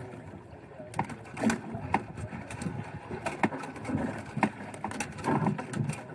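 Irregular clicks, knocks and rubbing as a thick nylon handline is hauled hand over hand aboard a small fishing boat, the line running over the side and dropping in coils on the deck.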